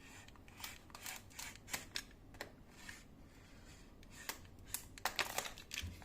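Scissors cutting through a cardboard box: a series of small irregular snips and clicks, more of them near the end.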